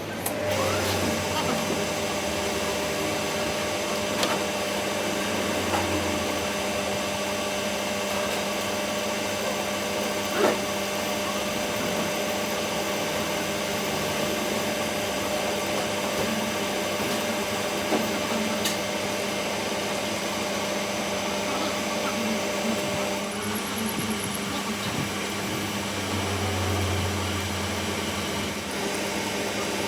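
A motor-driven workshop machine running steadily with a constant hum, broken by a few sharp clicks; one steady tone in the hum stops about three quarters of the way through.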